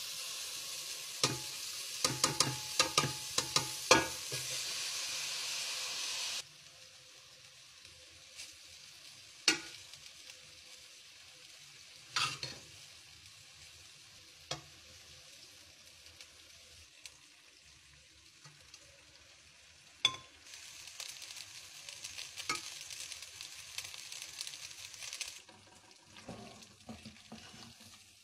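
Egg fried rice sizzling in a metal pot while a spoon stirs and scrapes it, with rapid sharp knocks of the spoon against the pot. About six seconds in, the sizzle cuts off suddenly, leaving only occasional knocks. A softer sizzle returns for a few seconds near the end.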